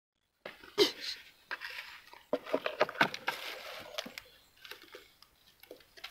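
Irregular clicks, knocks and rustling close to the microphone, starting abruptly just under half a second in.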